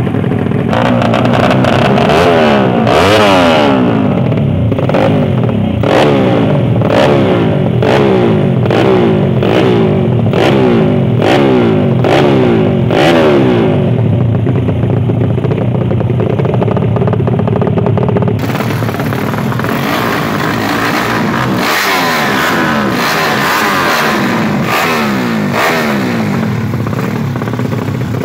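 Drag-racing motorcycle engines revved hard over and over, each rev climbing in pitch and falling back roughly once a second. The sound changes character about eighteen seconds in.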